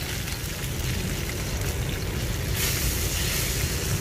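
Breaded straw mushrooms shallow-frying in hot oil in a nonstick pan on their second fry to golden and crisp: a steady sizzle that swells for about a second past the middle, over a low steady rumble.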